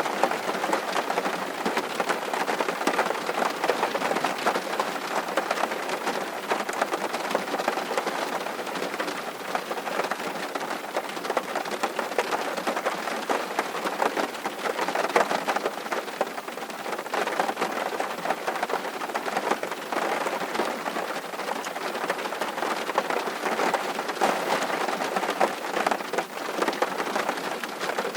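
Steady rain falling: an even, dense hiss of countless small drops that holds without a break.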